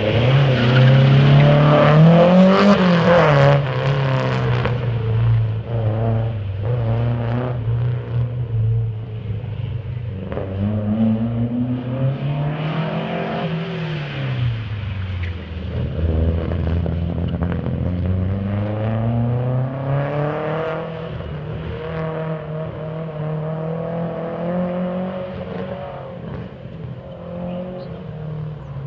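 Datsun roadster's four-cylinder engine accelerating hard away from the start, loudest as it pulls away, then revving up and down again and again as the car works through a cone course. It grows fainter as the car draws away.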